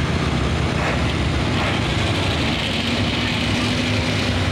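Engine of a lifted 1970s Ford pulling truck running steadily at low revs: a deep, even drone with no revving.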